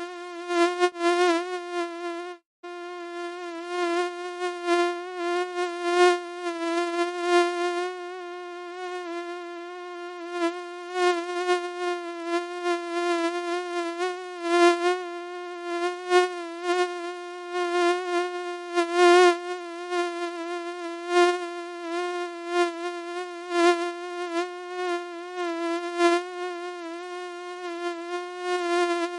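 Mosquito whine: the steady buzz of its wingbeats, holding one pitch while swelling and fading in loudness again and again. It breaks off for a moment about two and a half seconds in.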